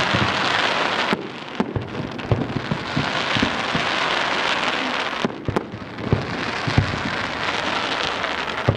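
Firework barrage firing, a dense continuous crackling from many crackling stars with scattered sharp pops, easing briefly about a second in and again about five seconds in.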